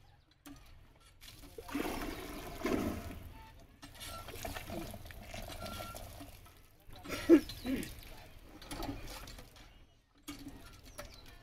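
Water pouring and splashing from a hand-pump well spout as an Asian elephant drinks, filling its trunk at the spout and emptying it into its mouth, in several spells, with one sharp, louder splash about seven seconds in.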